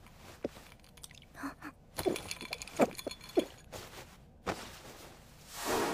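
A person gulping a drink, several short swallows about half a second apart, followed near the end by a breathy rush of sound.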